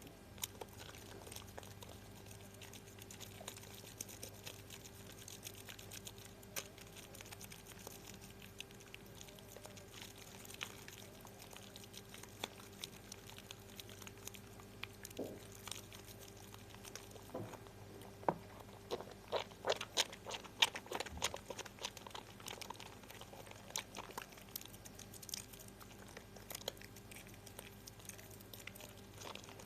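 Soap being lathered by hand: a steady run of small wet clicks and crackles from the foam, growing denser and louder about twenty seconds in.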